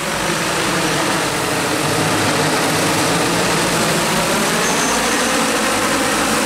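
Agricultural spraying drone's multiple rotors humming steadily as it flies close by, a dense whir of propeller noise that grows a little louder in the first second or two.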